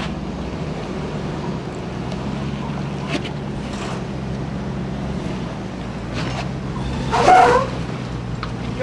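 Hummer H2's 6.0-litre V8 running steadily at low revs as the truck crawls up sandstone ledges. A short loud cry rings out about seven seconds in.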